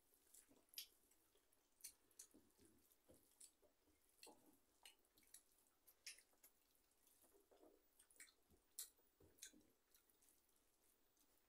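Faint eating sounds: rice and dal being mixed by hand on steel plates and chewed, heard as irregular small wet clicks and smacks, several a second.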